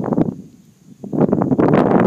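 Two loud bursts of rustling, crackling noise right on the microphone: a short one at the start and a longer one from about a second in.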